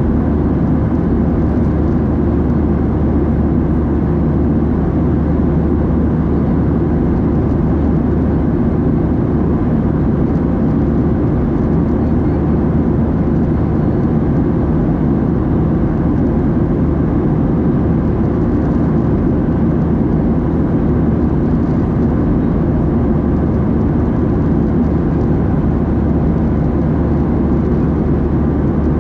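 Steady, deep, even roar inside the cabin of a Boeing 737-700 in flight: rushing air and its CFM56-7B turbofan engines, with no change in pitch or level.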